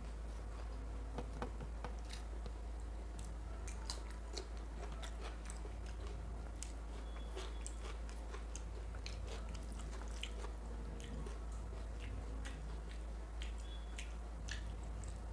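Close-miked chewing and biting while eating mutton curry with rice: irregular wet mouth clicks and smacks, over a steady low hum.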